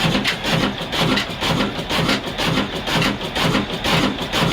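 An 18-horsepower diesel 'black engine' running at a steady speed, driving an ara saw machine, with a regular beat of about three pulses a second and a rasping, sawing sound over it.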